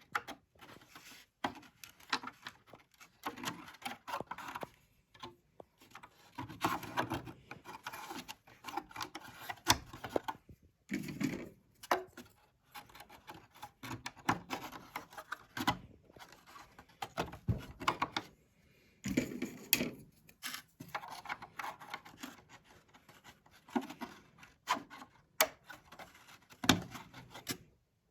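Hand repair work: irregular scraping and rubbing strokes with small knocks and clicks, broken by short pauses.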